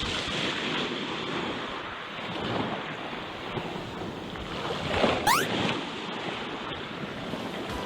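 Sea waves washing against the shore with wind buffeting the microphone, a steady rushing noise. A brief, fast-rising whistle sounds about five seconds in.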